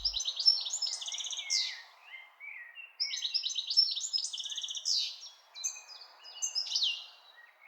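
Small birds chirping and calling in quick high runs and short trills, with a lull about two seconds in, over a faint steady hiss.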